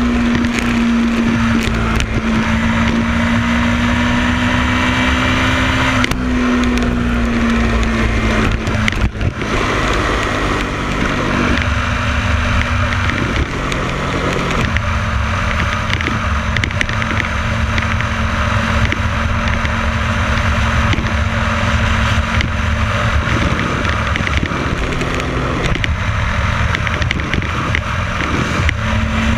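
Motorcycle engine running steadily at cruising speed under a constant rush of wind and road noise. Its pitch dips a little about seven seconds in and climbs again near the end.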